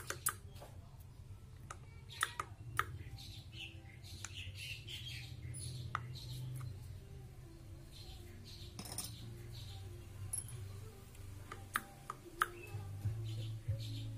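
Scattered light metallic clicks and clinks of a motorcycle clutch assembly being handled as the clutch basket and plates of a Yamaha Vega ZR engine are worked loose and lifted out, over a low steady hum. Short chirps are scattered among the clicks.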